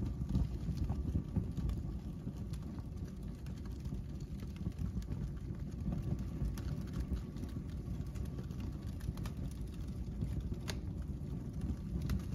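Paper bags burning in a fireplace: a steady low roar of flames that rises suddenly at the start, with scattered crackles and pops.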